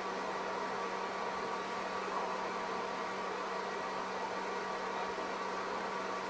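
Steady machine hum with an even hiss and a few constant tones, like a running fan or motor; it does not change.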